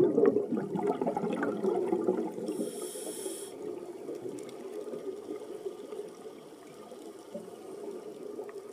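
Muffled underwater water noise with bubbling, loud at first and fading over the first few seconds to a low steady wash. A brief high hiss comes about three seconds in.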